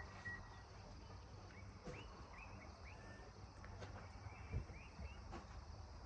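Faint outdoor ambience with a few short, high bird chirps.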